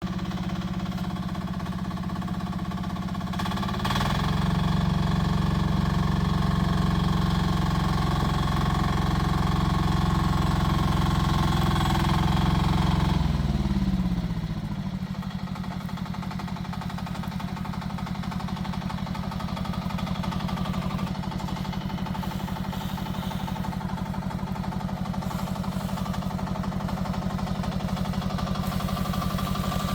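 Rippa R10 mini excavator's engine running. It speeds up about four seconds in, holds a higher speed for about ten seconds, then drops back to a lower, steady speed around fourteen seconds in.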